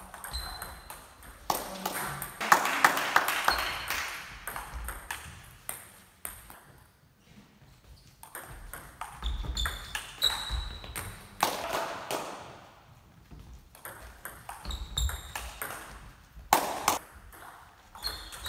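Table tennis ball struck back and forth with rubber-covered bats and bouncing on the table: quick sharp clicks, each with a short high ping. The clicks come in several short rallies, with a lull of a couple of seconds in the middle.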